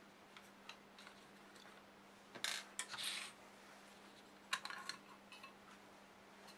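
Handling a DQ542MA stepper driver's metal case with its cover screws out: a few light clicks, then two short bursts of metal clatter, about two and a half seconds in and again about four and a half seconds in, as the case is set down and its cover is lifted off.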